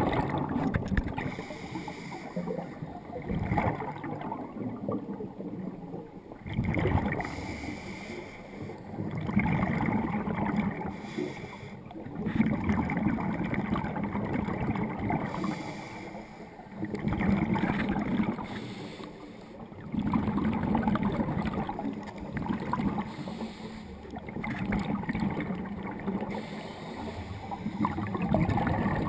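Scuba regulator breathing heard underwater: rumbling, gurgling exhaled bubbles and regulator flow that swell and fade with each breath, roughly once every three to four seconds.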